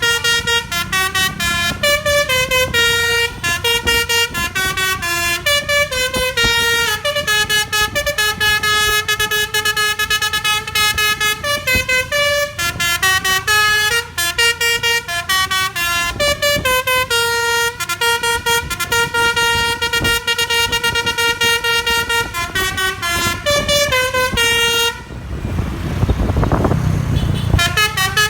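Loud basuri telolet horn on the Ciptaning Trans bus: several roof-mounted air trumpets sounded in quick succession, playing a fast stepped tune over and over. About 25 s in the horn stops and a low rumble fills a couple of seconds before the tune starts again near the end.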